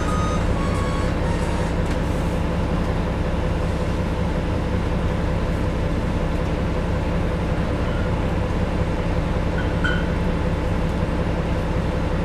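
Cummins ISM diesel engine of a 2000 Neoplan AN440 transit bus running steadily, heard inside the passenger cabin as a deep, bassy drone.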